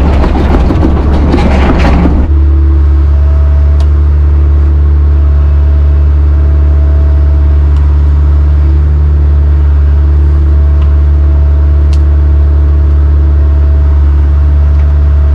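Excavator engine running steadily under a strong low drone, with a loud rattling clatter that stops abruptly about two seconds in.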